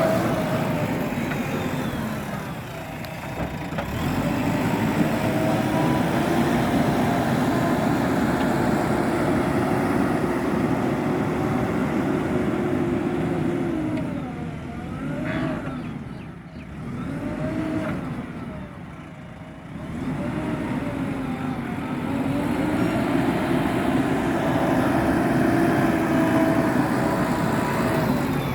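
JCB digger's diesel engine running under load. It revs up and drops back several times, easing off briefly about three seconds in and twice more past the middle.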